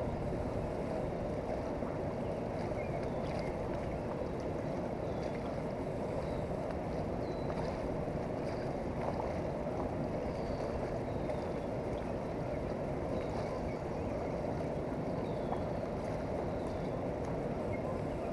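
Steady rush of a fast-flowing river, even and unbroken.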